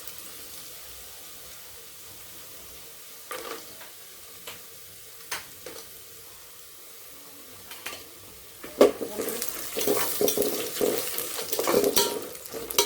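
Peanuts, garlic and dry coconut slices frying in oil in a pan, a low steady sizzle with a few scrapes. From about nine seconds in they are stirred briskly, scraping and clattering against the pan.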